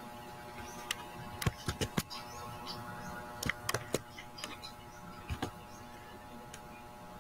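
Irregular clicks of a computer keyboard and mouse, a few at a time in small clusters, over a steady faint electrical hum.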